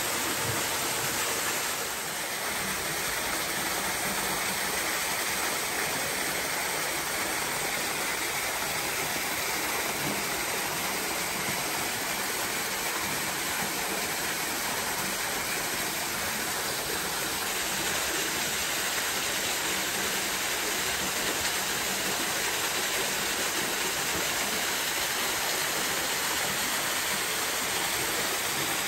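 Water pouring steadily into a shallow concrete pool, a constant rushing.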